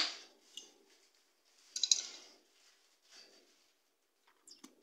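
A metal spoon and a small glass bottle of oil being handled: a sharp click at the start, then a short run of light clinks and clicks about two seconds in and a couple of small ticks near the end.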